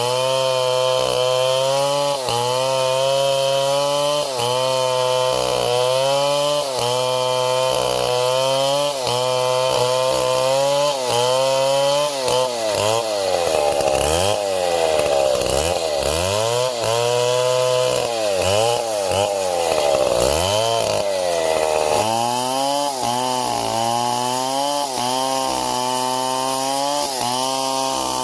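Two-stroke chainsaw running under load while cutting wood. Its engine pitch sags and recovers about every second and a half. Near the middle it bogs down deeply several times before picking up speed again.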